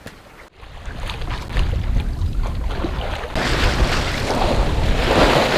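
Wind buffeting the microphone on a sailboat at sea, with water rushing past the hull; the hiss grows louder and brighter about three and a half seconds in.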